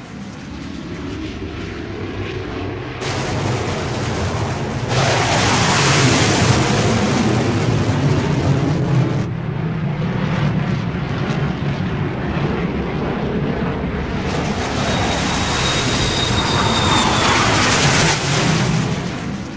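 An aircraft engine droning overhead, growing louder a few seconds in and holding, with a thin whine that falls slightly in pitch near the end.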